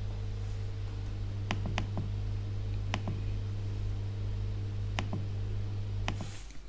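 Sharp clicks from the Dell XPS 13 laptop being worked, several in quick pairs, over a steady low hum that stops shortly before the end.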